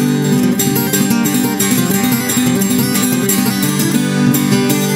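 Background music of strummed and picked acoustic guitar, steady throughout.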